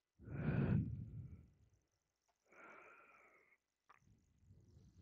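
A person breathing close to the microphone: a loud breath near the start and a softer one about two and a half seconds in, with a faint click shortly before the end.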